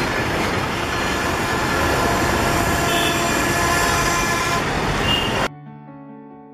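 Busy street traffic, a dense steady din of auto-rickshaw, motorcycle and car engines passing. It cuts off abruptly about five and a half seconds in, giving way to quiet sustained music tones.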